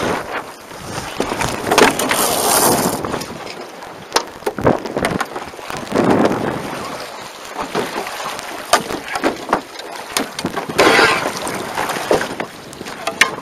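Wind buffeting the microphone over water rushing and splashing along the hulls of an A-Class catamaran under sail, swelling and falling in uneven gusts with sharp slaps of spray and chop against the hull.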